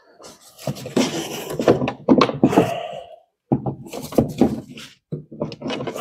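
Rubber air intake hose and plastic intake ducting being twisted and pulled by gloved hands to free a hose that seems stuck on the intake: irregular clusters of plastic knocks, thunks and rubbing.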